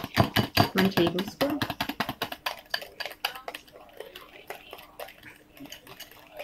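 Wire whisk beating leche flan custard mixture of eggs and milk in a mixing bowl, its wires clicking rapidly against the bowl at several strokes a second. The clicks grow softer about halfway through.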